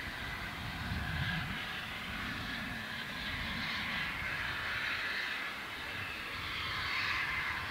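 Steam locomotive hauling its train away into the distance: its exhaust and running heard as a steady, far-off rushing sound that swells and fades slightly.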